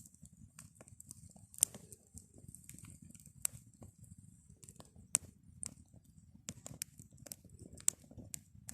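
Campfire crackling: sharp, irregular pops and snaps over a low rumble.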